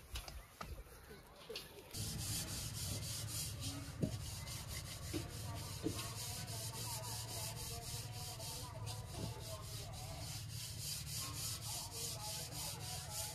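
Rhythmic rubbing or scraping strokes, several a second, starting abruptly about two seconds in and keeping up a steady pace.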